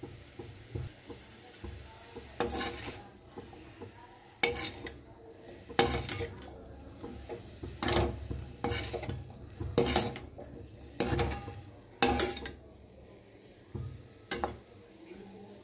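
Perforated steel spatula scraping and tossing potatoes, peas and spinach in a steel kadhai, mixing in the spice powder. There are about ten separate strokes roughly a second apart, starting a couple of seconds in, with a last one near the end.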